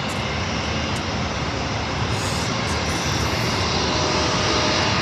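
Jet airliner engines giving a steady roar of noise that grows slightly louder in the second half.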